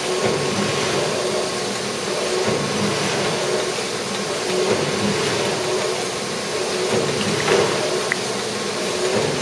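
Johannisberg 104 sheet-fed press running: a steady mechanical whirr with a held tone, and a couple of short sharp clicks near the end.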